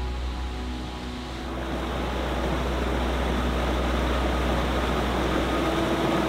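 Steady rushing noise under soft background music, filling in after about a second and a half.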